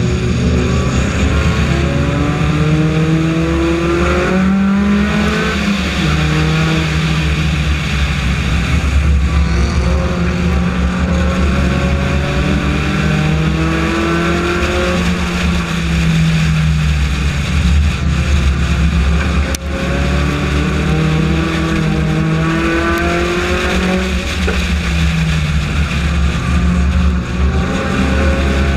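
Four-cylinder Honda race car engine heard onboard at full race pace, the revs climbing on each straight and dropping back as it lifts for each turn, over and over, with steady wind and road noise underneath.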